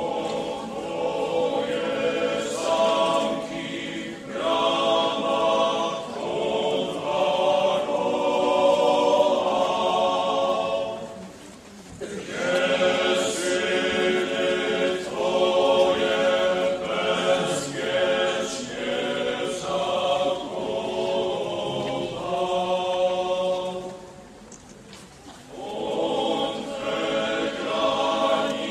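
A chorus of men's voices singing a slow chant together in long phrases. It breaks off briefly about four and twelve seconds in, and pauses longer a few seconds before the end.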